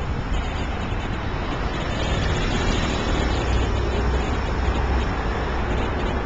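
Steady road traffic noise: a continuous low rumble of vehicles passing on a city street.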